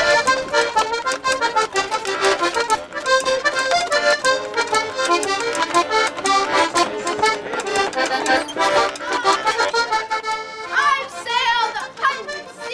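Accordion music, a quick run of notes that goes on without a break. Near the end a voice briefly breaks in over it.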